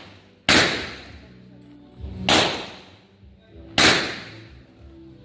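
Three pistol shots from a Rock Island Armory Tac Ultra FS HC, spaced about a second and a half apart, each ringing off the range walls as it fades.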